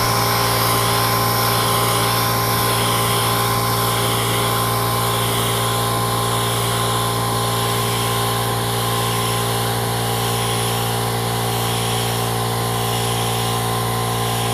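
A small electric air compressor running steadily with a constant hum, under the hiss of a compressed-air paint spray gun spraying latex paint.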